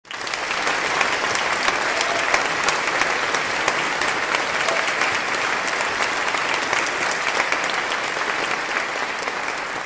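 Audience applauding steadily, the clapping easing off a little near the end.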